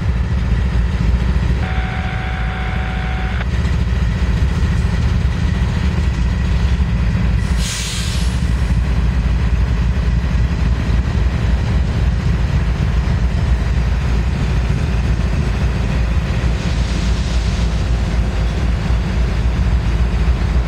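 Two Norfolk Southern diesel locomotives moving slowly as light power, their engines rumbling steadily. A short sharp hiss of air comes about eight seconds in, and a fainter hiss a little past the middle.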